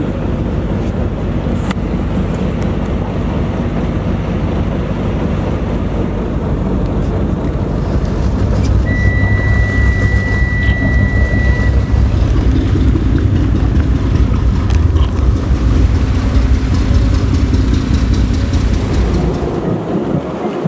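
Steady low engine rumble that grows louder about eight seconds in, with a single steady high beep lasting about three seconds near the middle.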